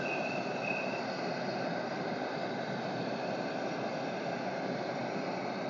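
Steady sizzle and roar of a pan of very hot oil with bars of soap frying and dissolving in it, on a stove burner turned up high.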